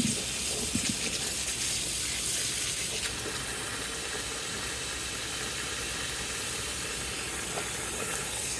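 Tap water running steadily into a sink for a cold rinse, a constant hiss of water.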